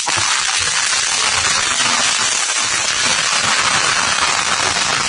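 Handheld electric fly-swatter racket crackling without a break as it is swept through a swarm of tiny insects on a window, zapping many at once.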